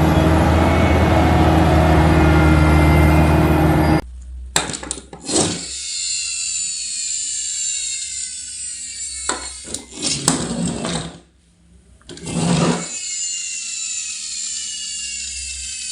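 A toy truck's small motor and gears whirring. A loud, steady buzzing hum lasts about four seconds. Then come several short whirring bursts, each followed by a whine that falls slowly in pitch as it winds down.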